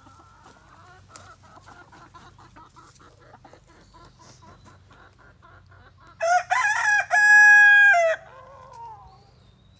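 Chickens clucking in a quick run of short notes, then about six seconds in a rooster crows once, loudly, for about two seconds, ending on a long held note.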